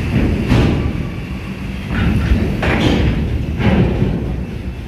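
Mercedes-Benz coach bus's diesel engine running with a steady low rumble as the bus pulls slowly forward and turns close by. Several short hissing bursts break in, about four in all.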